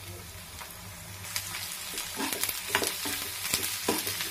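Sliced onions and garlic sizzling in hot oil in a black kadai, the hiss growing louder about a second in. From about two seconds in, a wooden spatula scrapes and knocks irregularly against the pan as they are stirred.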